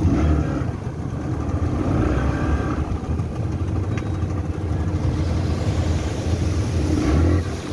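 Small outboard motor running steadily at speed while towing, its low hum the loudest sound, with water rushing past the boat's hull.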